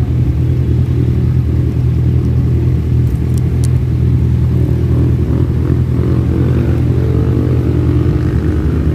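Kawasaki Z1000's inline-four engine idling steadily while stopped at a light, with the engines of other vehicles around it joining in from about halfway through.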